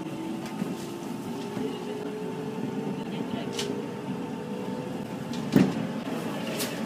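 Electric commuter train accelerating from a stop: the traction motor whine rises slowly in pitch over the running rumble of the wheels. About five and a half seconds in, a sharp loud knock comes as an oncoming train passes close alongside, with a few fainter clicks around it.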